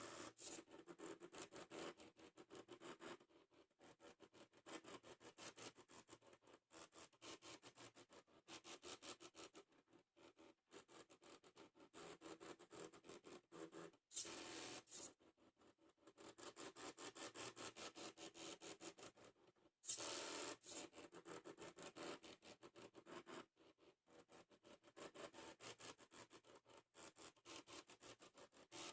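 Mini CNC plotter's salvaged DVD-drive stepper motors stepping quietly: a rapid stepping buzz over a steady hum that runs in stretches, stops briefly and starts again. Two sharp clicks come about halfway and two-thirds through.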